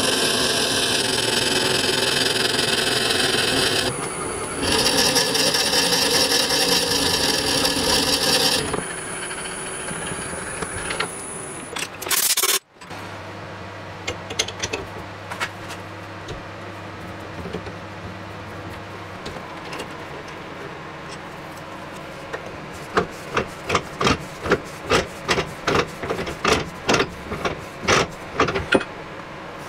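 A wood lathe spins an elm burl and resin pepper-mill blank while a long bit bores out its centre: a loud scraping cut that pauses briefly about four seconds in and dies away about eight seconds in. After an abrupt break comes a faint low hum, then near the end a run of sharp metallic clicks and knocks as the blank is fitted into a metal lathe chuck.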